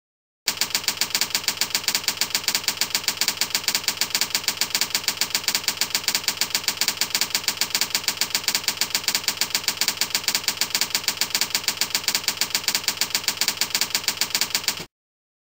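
Slide-show typewriter sound effect: a rapid, even run of mechanical clicks, about five a second, that goes with the text building in letter by letter. It starts about half a second in and cuts off suddenly near the end.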